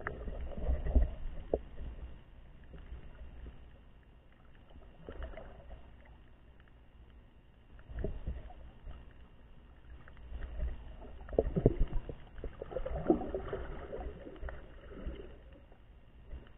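Muffled water sloshing and swirling, heard through a camera held under shallow water, coming in uneven surges: near the start, about eight seconds in, and again from about eleven to fourteen seconds.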